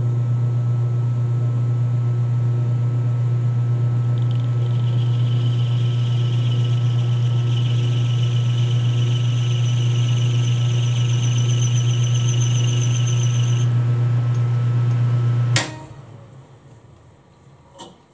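Metal lathe running with a steady low motor hum while the tool cuts an undercut behind the threads of a 1/4-20 stud; from about four seconds in the cut gives a high, wavering whine that stops some ten seconds later. Near the end the lathe is switched off with a click, and the hum dies away as the chuck coasts to a stop.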